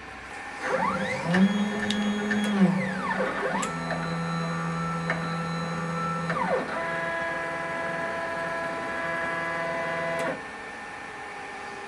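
Stepper motors of a DIY CNC router whining as the axes move: a few moves that rise in pitch as they speed up, hold a steady tone and ramp back down, then a final steady move that cuts off suddenly about ten seconds in, as the spindle comes down onto the probe button.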